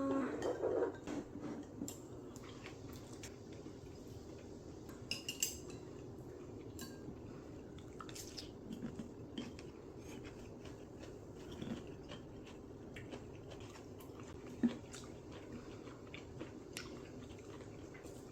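Dishes and cutlery clinking lightly now and then, with one sharper knock about two-thirds of the way through, over a faint steady hum.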